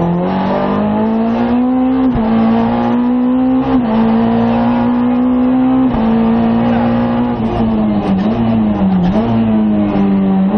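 Rally car engine at hard throttle heard from inside the cabin, its note holding high with short drops in pitch about two, four and six seconds in, typical of gear changes, then two brief dips near the end.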